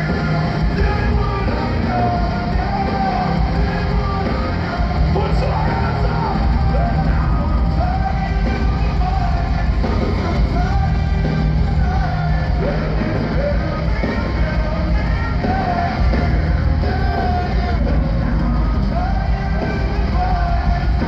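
Rock band playing live through an arena PA: a lead singer's sustained melody over electric guitars, bass and drums.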